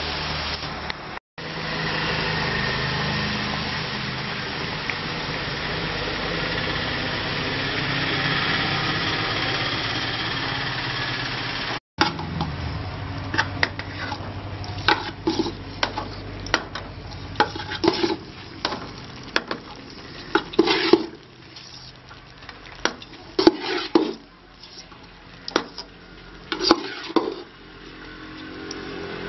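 Oil tempering of dried red chillies and curry leaves sizzling and bubbling steadily in a metal kadai for lemon rice. From about twelve seconds in, a perforated steel ladle clinks, knocks and scrapes against the pan in irregular strikes as cooked rice is tipped in.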